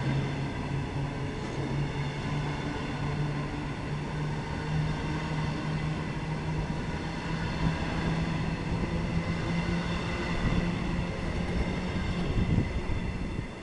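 Long train of bogie hopper wagons rolling past, wheels rumbling on the rails with a steady low hum throughout. The noise drops away near the end as the last wagon clears.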